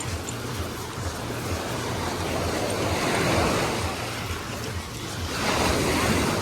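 Small sea waves washing onto a beach, swelling twice: about halfway through and again near the end.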